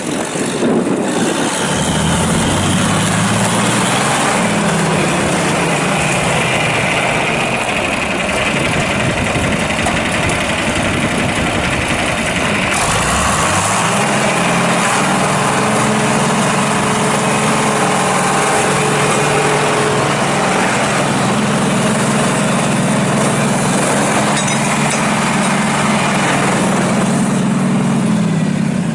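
John Deere 4020's six-cylinder diesel engine running under throttle. Its speed rises about two seconds in and eases back, then climbs again about thirteen seconds in and holds steady at a higher speed.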